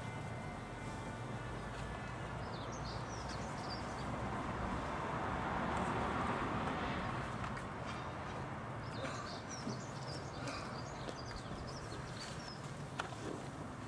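Outdoor background with small birds chirping now and then over a steady hiss that swells a little in the middle.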